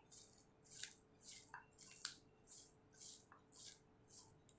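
Hands squeezing and tossing salted, thinly sliced red onion in a glass bowl to separate the layers: faint, soft squishing, rustling strokes about twice a second.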